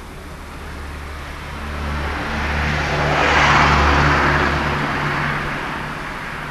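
A car passing by, its tyre and engine noise swelling to its loudest about three and a half seconds in, then fading away.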